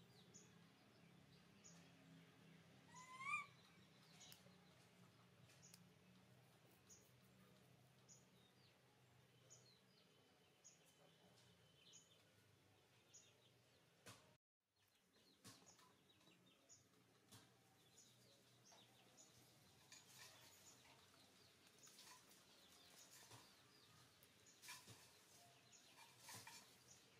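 Near silence: faint outdoor background with a single short rising chirp about three seconds in, faint high ticks about once a second, and a few soft clicks later on.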